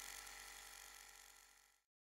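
Faint steady mechanical running of a walking-beam alpha Stirling engine, fading out and going silent just before the end.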